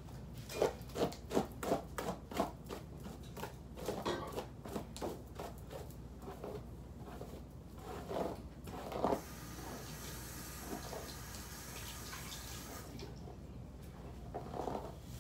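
Hairbrush strokes through long hair: a quick run of swishing strokes about three a second, then slower, scattered strokes. A steady hiss lasts about three seconds a little after the middle.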